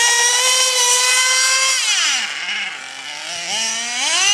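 Gas-powered RC truck's small engine running at high revs with a high-pitched whine, dropping sharply in pitch about halfway through as the throttle comes off, then revving back up near the end.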